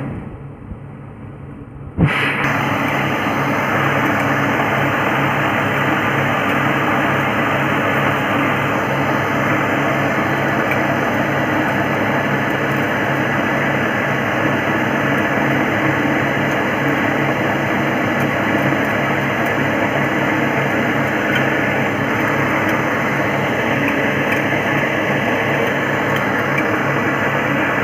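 Motor-driven rice hulling mill running with a steady mechanical drone as husked rice pours from its outlet into a plastic tub. The sound drops away at the start and cuts back in with a click about two seconds in.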